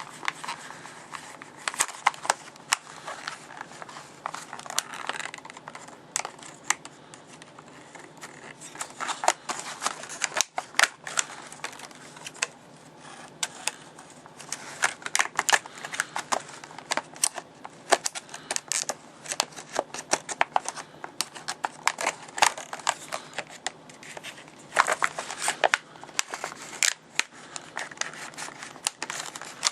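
Hard plastic clamshell packaging being cut with a knife and pried apart by hand: irregular sharp clicks, snaps and crackling of stiff plastic.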